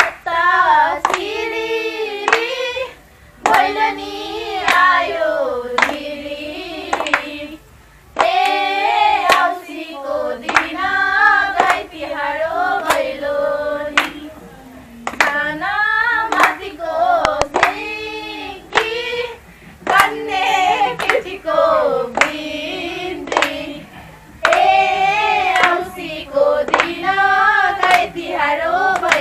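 A group of women singing a Bhailo song together in phrases with short pauses, clapping their hands in time with the song.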